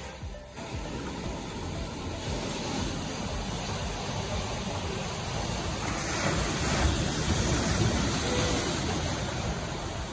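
Surf washing onto the shore as a steady rushing noise that swells to its loudest about six seconds in.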